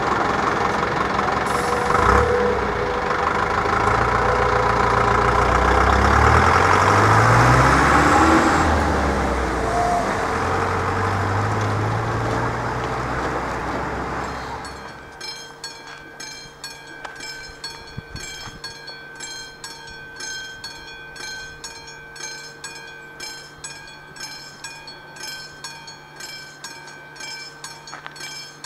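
Lorry and car engines pulling away and accelerating through the gears, with the low engine note stepping up in pitch twice. About halfway through this gives way to an AŽD 97 level-crossing warning bell ringing steadily at about two strokes a second.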